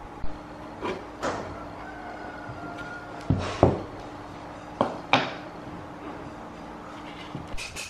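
Sharp wooden knocks and bumps as an open pine speaker box is handled on a plywood workbench. There are about seven in all, the two loudest close together a little past the middle, over a faint steady hum.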